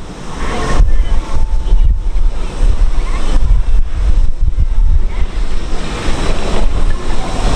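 Wind buffeting the microphone in gusts, a heavy low rumble under a steady rushing hiss.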